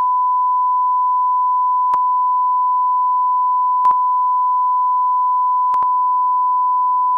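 A continuous electronic beep: one steady, loud pure tone at about 1 kHz, like a censor bleep or test tone, with faint clicks roughly every two seconds.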